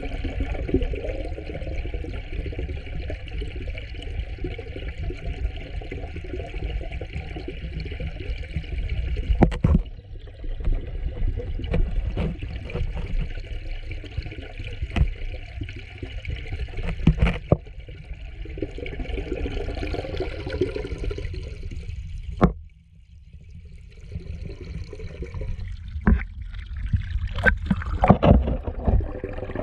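Pond water heard through a submerged camera: a steady, muffled rush and rumble of moving water with a few knocks. Near the end a stream of air bubbles churns where water pours into the pond.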